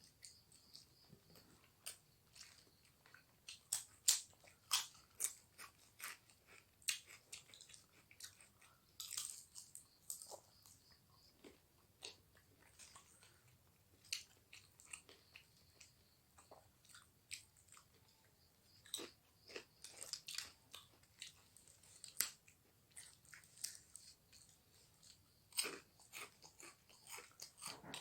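A person chewing and crunching food close to the microphone, with irregular sharp crunches and clicks coming in clusters.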